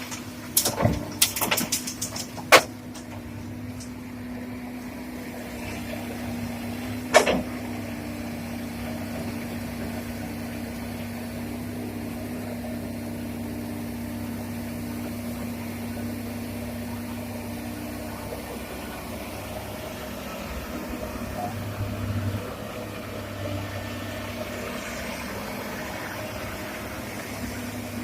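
Excavator diesel engine running steadily. There are several sharp knocks in the first few seconds and one loud clank about seven seconds in.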